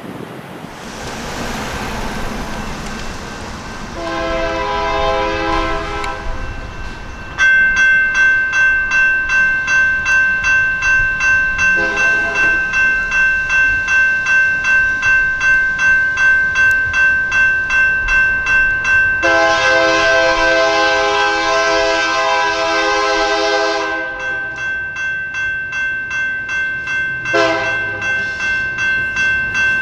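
General Signal Type 2 electronic crossing bell starts about seven seconds in and strikes steadily, about two to three strokes a second, each stroke ringing out. An approaching train's horn blows four blasts over it, long, short, long, short.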